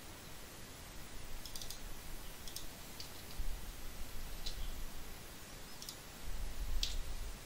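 Computer mouse buttons clicking, about seven short single clicks spread irregularly, with a couple of low bumps in between.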